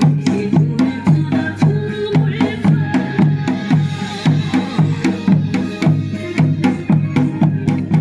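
Dance music with a steady drum beat, about two beats a second, and sharp clicking percussion over it.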